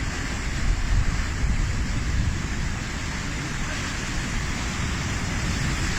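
Steady rush of heavy sea surf with wind buffeting the microphone, giving a deep rumble.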